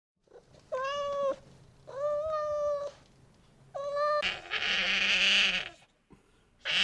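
Animal calls: three short, clear, meow-like cries, then about four seconds in a louder, harsher bleat-like call lasting over a second, with another starting near the end.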